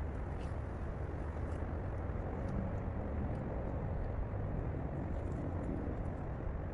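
Steady outdoor background noise: a low, even rumble with faint scattered ticks over it.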